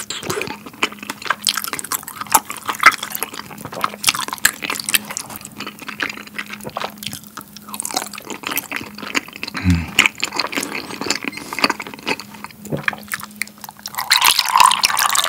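Close-miked chewing and slurping of chewy wheat-flour tteokbokki rice cakes in sauce: a steady run of wet mouth clicks and smacks. About fourteen seconds in, a drink is poured from a carton into a glass.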